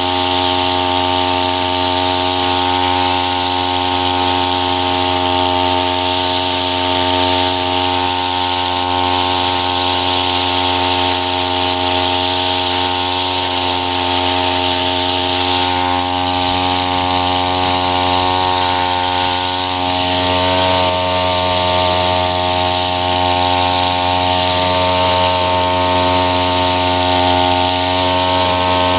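Tabata 32 cc two-stroke backpack brush cutter running steadily under load, its eight-line nylon trimmer head cutting through tall grass with a constant hiss over the engine's whine.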